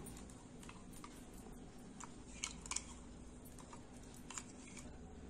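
Faint, scattered clicks of a steel spoon tapping and scraping inside a stainless steel mixer-grinder jar as thick ground paste is scraped out.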